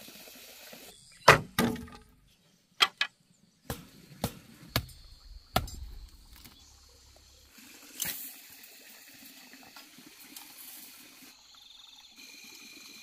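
A string of sharp, separate knocks and taps from hand work on a fence, about eight spread irregularly over several seconds, the loudest just over a second in, over a faint outdoor background.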